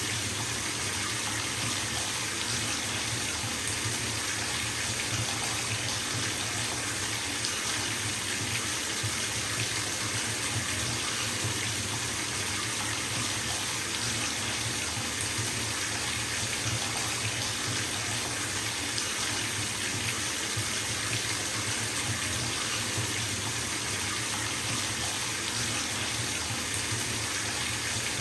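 Bathtub tap running full, water pouring steadily into the tub with an even splashing rush.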